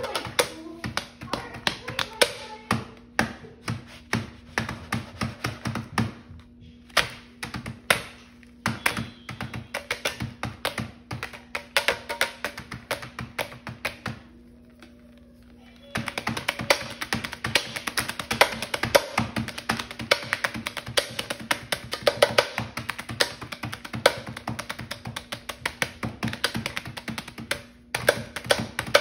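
A spatula drumming a rhythmic beat of taps and slaps on a tortilla and quesadilla lying on an electric crepe-maker griddle, with a brief pause about halfway through. A steady hum sits underneath.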